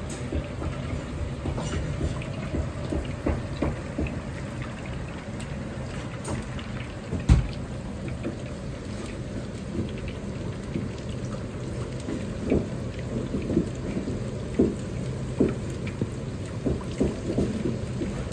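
Starch-coated chicken pieces deep-frying in a large wok of hot oil: a steady bubbling sizzle with scattered crackles and pops, which come more often in the second half. One loud knock about seven seconds in.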